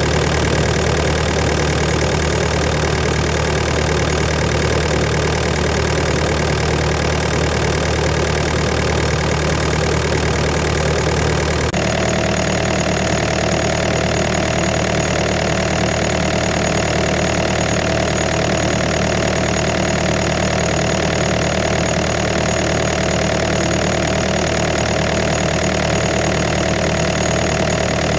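Diesel engine of a Doosan DX85 midi excavator idling steadily, heard with the engine bay open and the oil filler cap off. About halfway through the sound changes abruptly, and a steady high whine joins the engine note.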